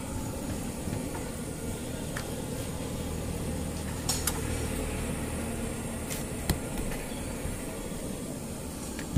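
Steady low rumble of machinery or traffic, with a few light clicks and knocks about four seconds in and again about six and a half seconds in.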